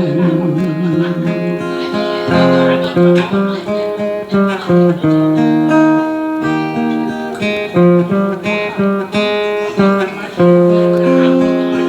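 Acoustic guitar playing an instrumental interlude, a run of picked and strummed notes with no singing.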